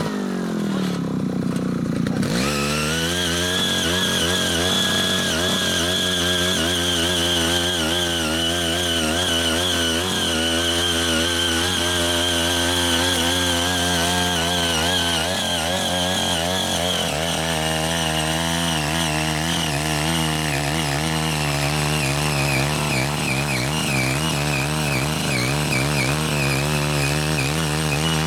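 Small 5 HP petrol engine of a mini rotary tiller running under load as its six rotary tines churn orchard soil. The revs drop in the first two seconds, then it runs steadily with a slight waver as the tines dig.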